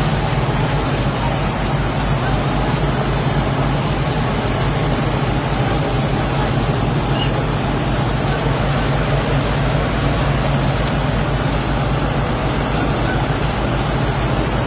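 Several tractor engines running hard under load, straining to pull one loaded trailer uphill: a steady, heavy drone with an even low throb.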